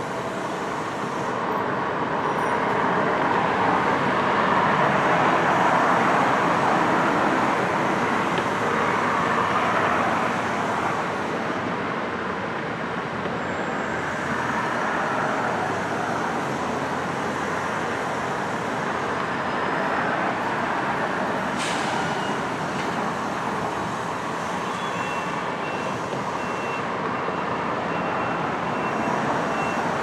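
Steady machinery and vehicle noise from a construction site, swelling and easing, with one sharp click partway through. A faint reversing beeper sounds near the end.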